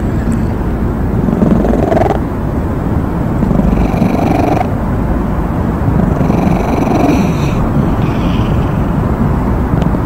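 A stray cat purring just after waking. It is still drowsy, so the purr sounds halfway between a purr and a snore. It is a continuous low rumble that swells and eases with each breath, every two to three seconds.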